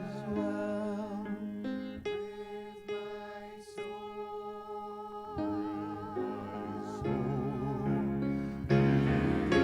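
Worship music: long, wavering sung or hummed notes over sustained chords with guitar, swelling louder near the end.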